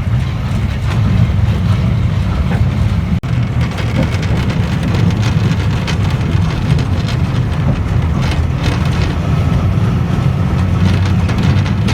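Botchan Ressha's diesel locomotive and wooden carriage running along the tram line, a steady low rumble with scattered clicks and rattles from the wheels and car body.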